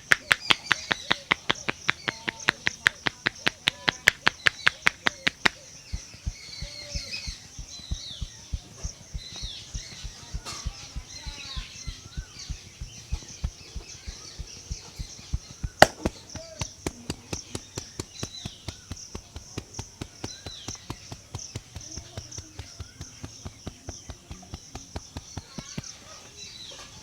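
A barber's hands tapping rapidly and rhythmically on a head during an Indian head massage, about six sharp pats a second. The pats are loud for the first five seconds, then softer, with one louder crack near the middle. Birds chirp in the background.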